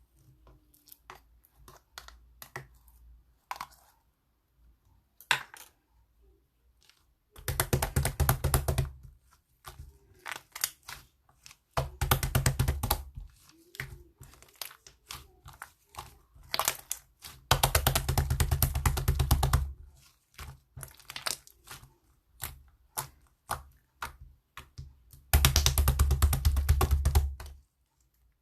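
Fried-egg style slime (white slime topped with yellow jelly slime) being squished and pressed by hand: scattered sticky clicks and pops, with four longer runs of dense, rapid crackling about two seconds each.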